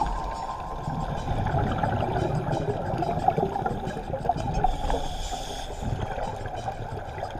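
Underwater sound of scuba divers breathing through their regulators: a steady crackling and bubbling of exhaled bubbles over a low rumble, with a brief hiss about five seconds in.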